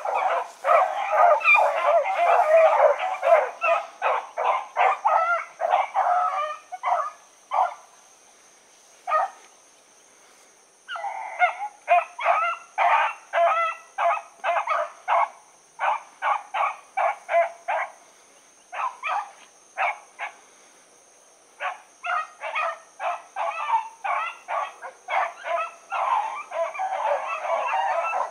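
A pack of rabbit hounds baying as they run a rabbit's track. Many voices overlap at first, then thin to scattered single bays with two short lulls, and the chorus builds back to full cry near the end.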